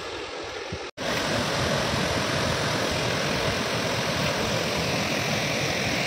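Monsoon-swollen waterfall in heavy, muddy flood flow, rushing as a loud, steady noise. The sound drops out briefly about a second in and comes back louder and fuller.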